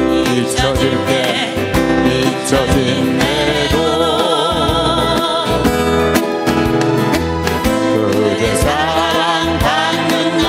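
Strummed acoustic guitars accompanying singing voices, a Korean popular song with a steady bass beat under it.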